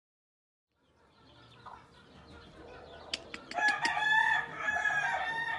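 A rooster crowing: one long crow beginning a little past halfway and still going at the end, preceded by a few sharp clicks.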